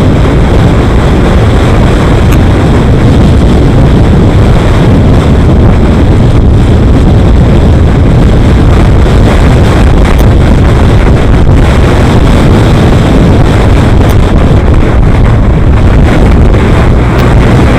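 Loud, steady wind rush on the microphone of a camera riding along at traffic speed, mixed with road and vehicle noise.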